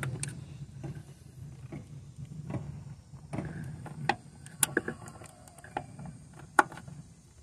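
Small ratchet with an 8 mm socket clicking and knocking irregularly as it loosens the throttle body's mounting bolts, with a few sharper metal clicks, the loudest near the end.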